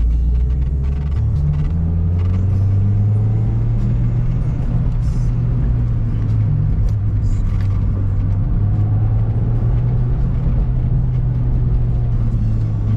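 Engine and road noise inside the cabin of a 2019 Mazda MX-5 Miata under way: the four-cylinder engine's low drone climbs in pitch in about the first second, then holds steady over the hiss of the tyres.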